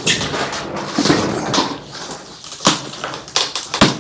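Scraping and knocking as a heavy ACIQ 3-ton condenser unit is rocked and tipped on a wooden pallet, with several sharp knocks and a heavy thump near the end.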